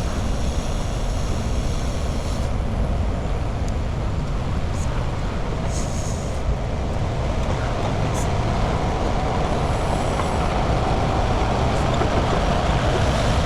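Heavy truck's diesel engine running with a steady low rumble.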